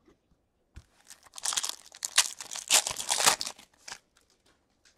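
Foil wrapper of a 2020-21 SPx hockey card pack being torn open and crinkled by hand, a rapid crackling rustle that starts about a second in and stops at about four seconds.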